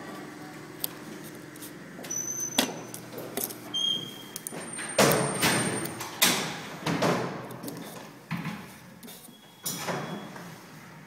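Handling noise: fingers pressing and rubbing a taped paper label onto a metal mailbox door, making a run of short scrapes and knocks of the metal, thickest around the middle, with a few brief squeaks.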